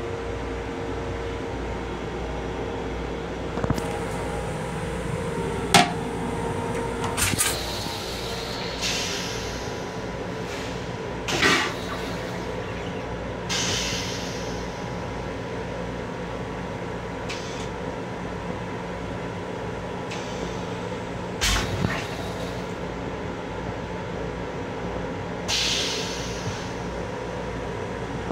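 Steady hum inside the restroom of a Long Island Rail Road M7 electric railcar, broken by about eight sharp knocks and rattles (the loudest about six seconds in) and three short hissing bursts.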